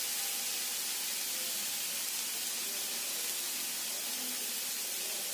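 Steady, high-pitched sizzling hiss of a beetroot bhaji (a dry vegetable dish) cooking in a steel kadhai.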